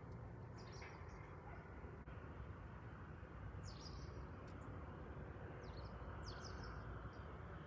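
Quiet outdoor ambience: a steady low background rumble, with small birds giving a few short high chirps about a second in, around four seconds and around six seconds.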